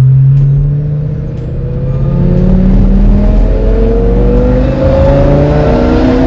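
Lamborghini Gallardo's V10 through a custom-fabricated straight-piped exhaust with the mufflers off, driven under acceleration. The engine note holds steady, eases off about a second in, then climbs steadily in pitch for about four seconds before falling suddenly near the end.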